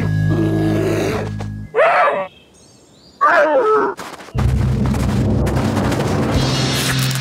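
Two short cartoon bear calls, each sliding up and down in pitch, about two seconds and three seconds in, with a brief quiet gap between them. Background music plays before and after them.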